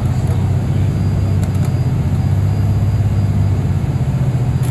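Transit bus engine and road noise heard from inside the passenger cabin: a steady low drone.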